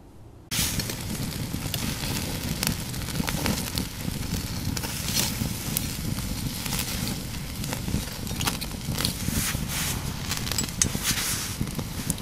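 Wood fire crackling in a Dakota fire pit under a wire grill of burgers and chicken, with many sharp irregular pops; it starts suddenly about half a second in.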